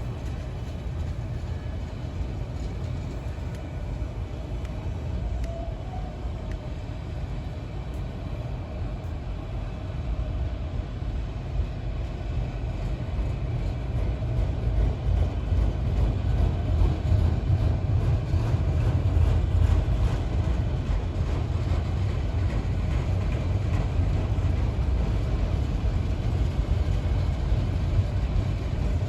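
Train rolling past with a steady low rumble that grows louder about ten seconds in.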